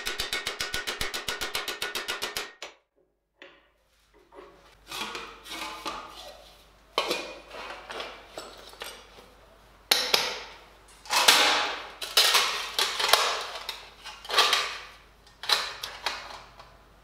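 Fast, even hammer blows on a thin stainless steel sheet held on a stake, planishing it, stopping about two and a half seconds in. After a short silence come irregular clanks, scrapes and rustles as the steel breastplate is fitted against the chest and strapped on.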